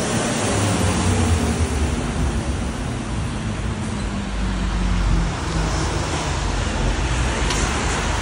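Road traffic running steadily, with engine and tyre noise from passing vehicles and a deep rumble throughout.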